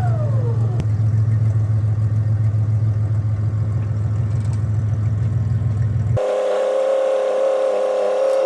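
Steady low drone of a vehicle being driven, engine and road noise heard from inside. About six seconds in it cuts abruptly to a different steady mid-pitched hum with no low rumble.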